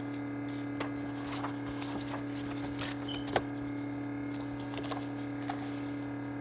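Paperback picture book being handled and its pages turned: scattered paper rustles and light taps, with one sharp tap about three and a half seconds in, over a steady electrical hum.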